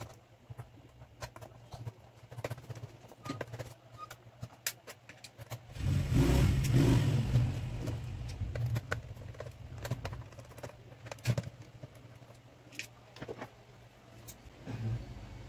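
Small clicks and taps of a screwdriver and loose screws as the bottom-case screws come out of an Asus A409M laptop. About six seconds in, a louder low rumble swells up and then fades away over the next few seconds.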